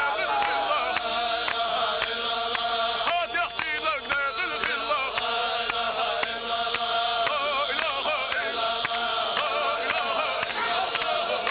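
Group of men chanting a Chechen Sufi dhikr together, many voices layered in a repeating melodic line, with a steady beat of sharp claps.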